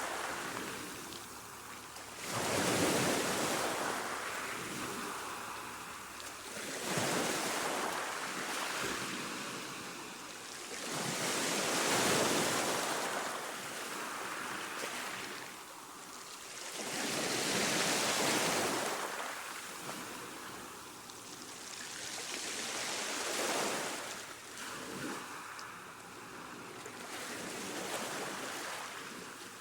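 Calm ocean waves washing onto a shore: a hiss of surf that swells and fades about every five seconds.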